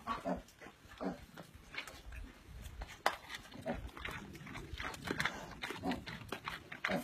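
A pig grunting in short, repeated bursts while feeding, with irregular clicks and smacks of eating.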